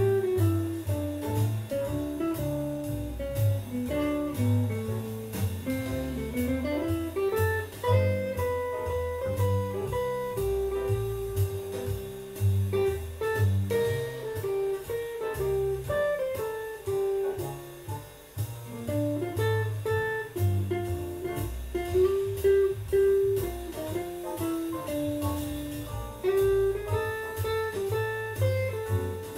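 Electric guitar playing single-note jazz-blues lines over a bass line, with a rising slide about seven seconds in.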